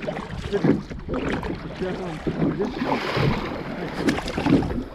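Kayak paddle strokes and water splashing and gurgling against a plastic sit-on-top kayak's hull. There is a louder splash about three seconds in, and some wind rumble on the microphone.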